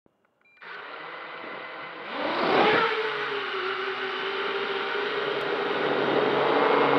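A modded MJX Bugs 3 quadcopter's brushless motors and propellers, heard from its onboard camera. The motors spin up at idle about half a second in, then surge at about two seconds as the quad lifts off, and settle into a steady whir as it climbs.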